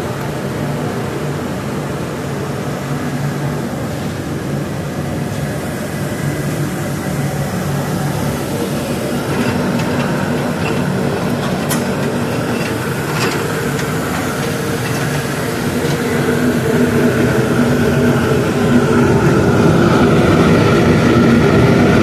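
Wood pellet burner firing a steam boiler: a steady mechanical hum and roar that grows louder near the end, with two faint clicks about halfway.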